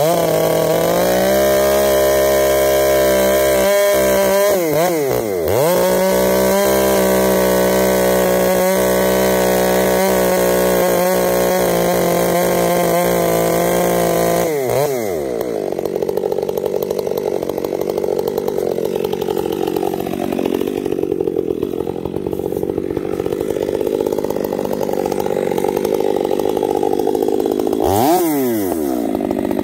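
Two-stroke chainsaw cutting into a tree trunk. It runs at high revs with a couple of brief dips, then about halfway through its pitch drops and the sound turns lower and rougher for most of the rest, before revving back up near the end.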